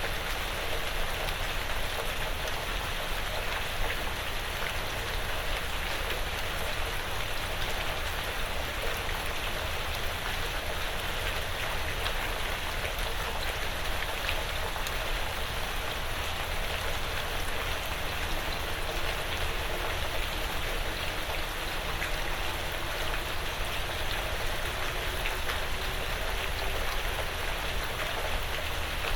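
Light rain pattering steadily on a porch roof and the surrounding woods, with a dense even hiss of drops and scattered individual drips.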